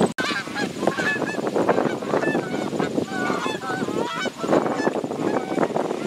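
A flock of Canada geese honking, many short calls overlapping all through, as the flock flies low over the water.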